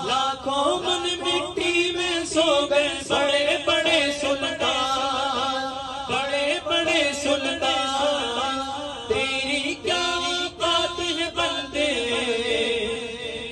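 Men singing a devotional Urdu naat into microphones, with long, wavering, ornamented notes.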